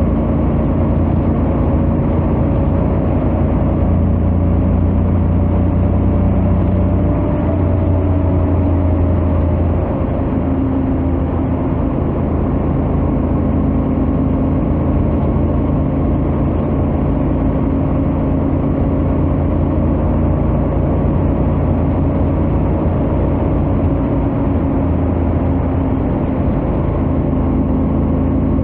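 Honda X-ADV 750's 745 cc parallel-twin engine running steadily at highway cruising speed through its stock exhaust, with a change in engine pitch about seven seconds in.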